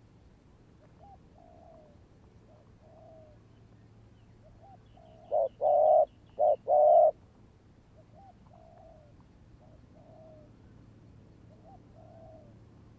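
Spotted doves cooing: soft, repeated coos about once a second, with a much louder close call about five seconds in, made of four coos, short, long, short, long.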